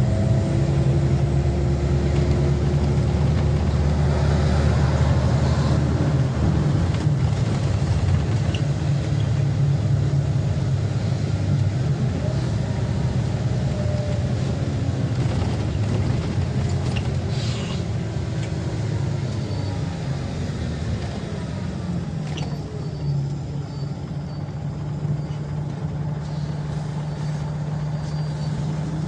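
Inside a Scania OmniLink CK94UB city bus under way: diesel engine running with a whine that rises and falls in pitch as the bus speeds up and slows, over tyre noise on a wet road. The engine note eases in the second half as the bus slows.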